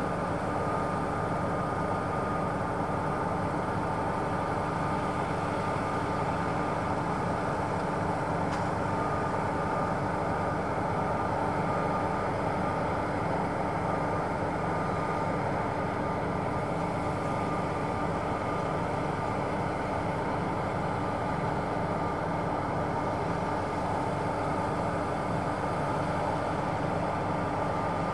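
Claas Tucano 570 combine harvester running steadily, a constant machine drone with a steady high-pitched whine over it.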